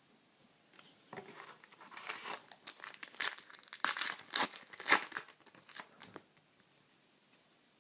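Trading card pack wrapper being torn open and crinkled: a run of crackling rustles that starts about a second in, is loudest in the middle and dies away a couple of seconds before the end.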